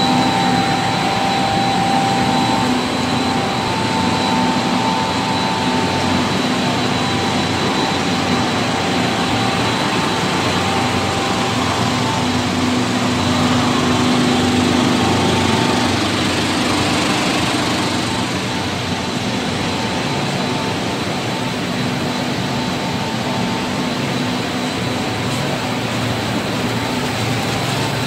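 A chocolate cereal flake extrusion production line running: a steady mechanical din of motors and conveyors with several steady whining tones. It eases slightly about eighteen seconds in.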